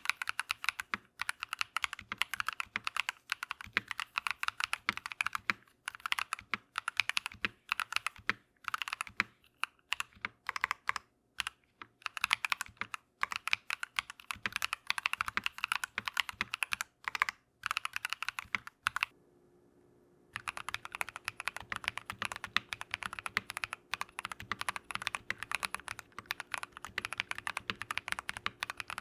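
Typing on a mechanical keyboard fitted with Drop + Invyr Holy Panda tactile switches: quick runs of keystrokes with short pauses. Just before the twenty-second mark it stops for about a second and a half, then the typing resumes with a faint steady hum underneath.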